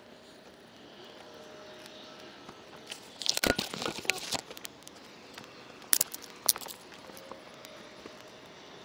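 Crunching and crackling of twigs and frozen leaves at a small kindling fire being lit. A dense cluster of crunches and snaps comes about three seconds in, then two sharp cracks about two seconds later.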